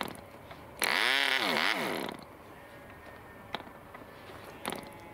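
SAM 50 half-cc model diesel engine with a 6x4 propeller, hand-flicked on the test stand: it fires about a second in and runs for about a second, its pitch rising, dipping and rising again, then cuts out. A couple of single sharp clicks follow near the end as the propeller is flicked again by hand. It is a starting attempt with the compression just backed off after it had run backwards.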